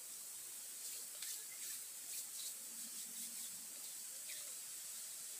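Small campfire of sticks and bamboo crackling faintly, with a cluster of sharp crackles between about one and two and a half seconds in, over a steady high hiss.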